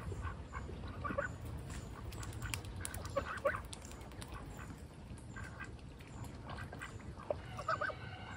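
Ducks quacking in short calls: one about a second in, a quick pair around three and a half seconds in, and a burst of several near the end.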